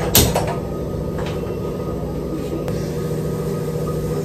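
A steady low mechanical hum. A sharp metallic clink of a kitchen utensil comes just after the start, with a couple of lighter taps later on.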